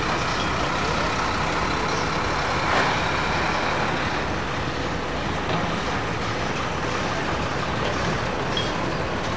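Steady rumble of a Boeing 747's four jet engines on final approach. There is a brief thump about three seconds in.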